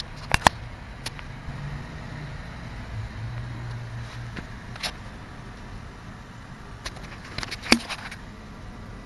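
Handling noise from a handheld camera: a few sharp clicks and knocks over a steady low hum, two close together about half a second in and the loudest near the end.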